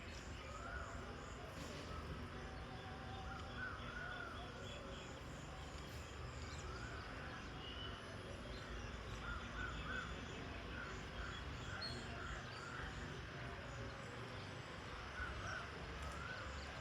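Birds calling outdoors: many short calls repeat throughout, with a fast series of high, thin pips above them and a steady low background rumble.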